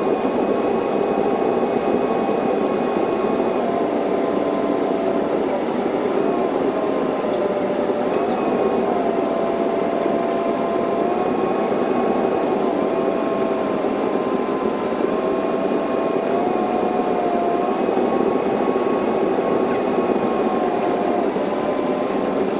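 Passenger jet cabin noise during the approach, sped up four times: a steady engine and airflow roar with a whining tone that steps up and down several times.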